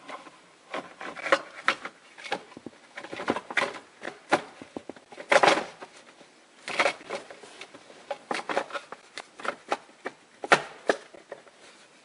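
Hard plastic steering column covers and dash trim being handled and fitted back into place: irregular clicks and knocks with some rubbing and scraping of plastic on plastic.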